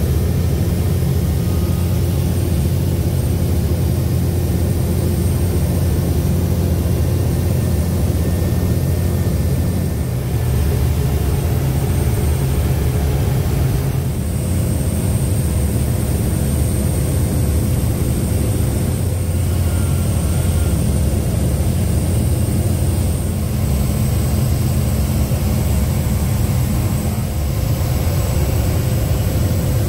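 Single-engine propeller airplane in flight, heard from inside the cockpit: the engine and propeller make a steady, loud drone.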